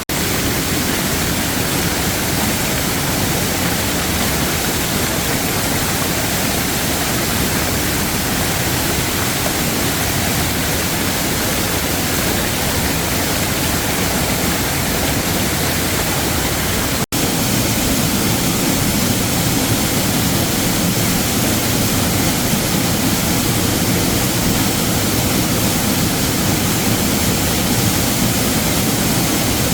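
Waterfall rushing, a steady loud wash of falling water, broken once by a momentary cut about seventeen seconds in.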